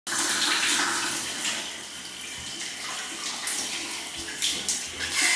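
Shower head spraying water onto tiled walls: a steady rush of running water that starts abruptly. It is louder at first, eases off in the middle and swells again near the end.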